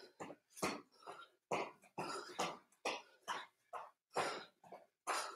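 A man panting hard, with short, breathy bursts about two a second, out of breath from jumping leg-swing exercises.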